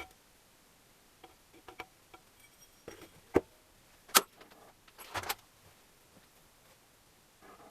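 Hands handling small engine parts and tools during engine assembly: scattered light clicks and taps, two sharp knocks a little past three and four seconds in, and a short rattle about five seconds in.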